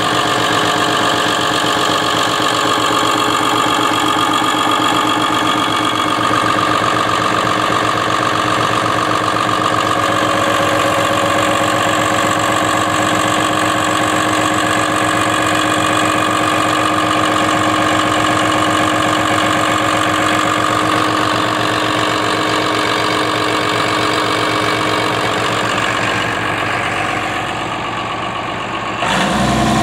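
Diesel engine of a Cat M322C mobile excavator running at a steady speed, heard close up in its open engine bay.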